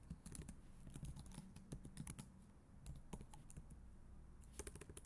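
Faint typing on a computer keyboard: irregular key clicks, a short pause, then a quick run of keystrokes near the end.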